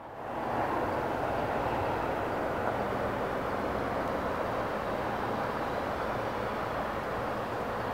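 Steady outdoor rumble of distant engines with a low hum, fading in over the first half second and then holding level.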